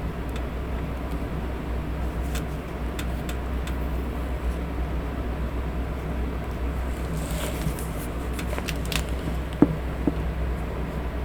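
Electric fan running steadily as white noise, with scattered faint rustles and light taps over it and a couple of sharper taps near the end.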